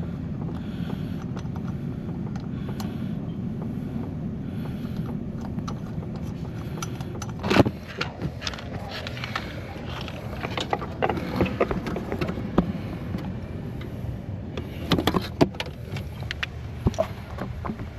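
Hand tools and metal hardware clinking and clicking irregularly, with a sharp metal knock about seven seconds in, over a steady low hum.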